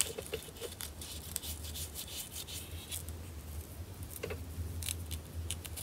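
Alcohol swab rubbed along a plastic foundation pump's dip tube and collar, making a run of soft, scratchy wiping strokes.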